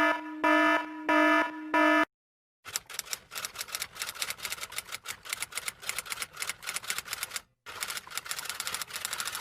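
Four short beeps at the same pitch in quick succession, then, after a brief silence, fast irregular clicking of typing keys that pauses once for a moment and starts again.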